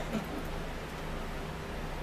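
Steady room background: an even hiss with a low hum underneath, and no distinct sounds standing out.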